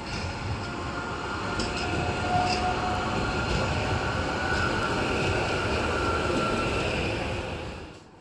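Tatra KT4D articulated tram passing close by, its wheels rumbling over the rails with a faint whine above the rumble. The sound swells over the first couple of seconds, holds steady, then cuts off sharply near the end.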